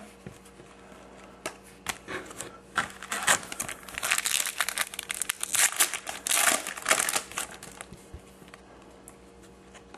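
Crinkling of a trading-card pack wrapper and cards being handled: a run of crackles and small clicks, busiest in the middle, dying away near the end.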